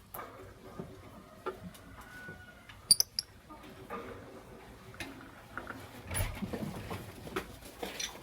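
Lovebirds moving about, making scattered scratching and rustling patter, with two short, sharp high chirps about three seconds in.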